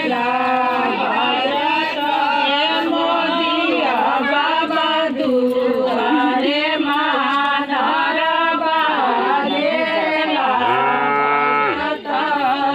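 Group of women singing a traditional ritual folk song together. About eleven seconds in, a long, steady, low held note sounds for about a second.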